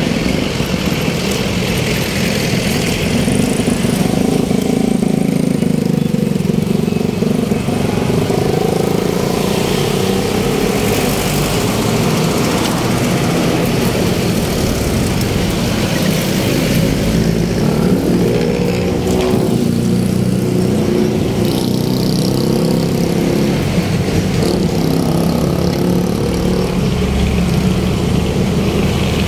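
Motor vehicle engines running with steady road traffic noise; the engine pitch rises and falls a few times.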